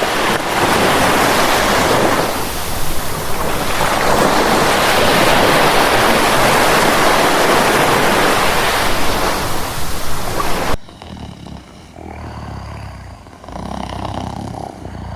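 A loud, rushing roar of noise used as a cartoon character's snore sound effect, swelling in the middle and cutting off suddenly about eleven seconds in. It is followed by two quieter, shorter noisy swells.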